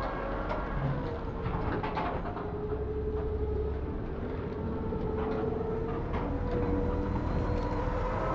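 A machine or engine running steadily with a hum that drifts slightly in pitch over a low rumble, and a few light clicks and knocks.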